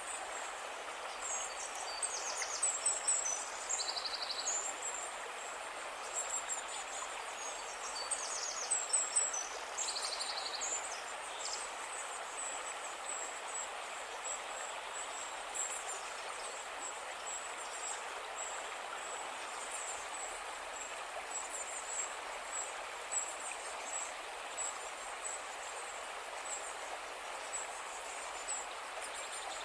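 River water flowing steadily in an even rush. Birds chirp high over it, most busily in the first dozen seconds.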